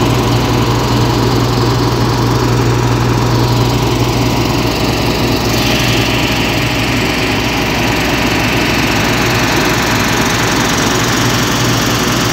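The Mercedes diesel engine of a 2013 Claas Tucano 320 combine harvester running steadily with a deep, even rumble, just after a start-up.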